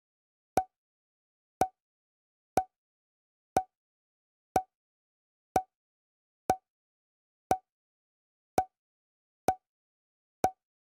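Sharp ticks at a steady pace of about one a second, with dead silence between them, like an added clock-ticking sound effect.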